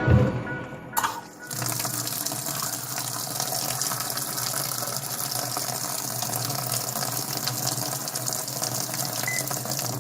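Water running steadily with a low steady hum beneath it, starting about a second and a half in after a short click.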